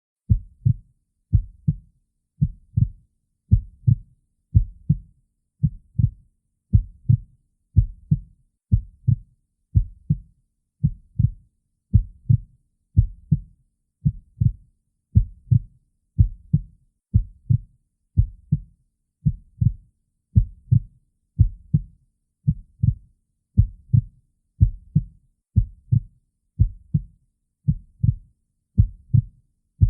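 Heartbeat heard through a stethoscope: a steady, slow lub-dub, each beat a double thump, about one a second.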